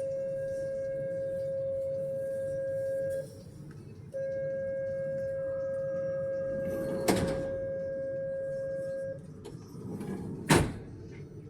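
Metro train door-closing warning tone: two long steady beeps, the second longer than the first, with a click during the second. A sharp thud near the end as the sliding doors shut.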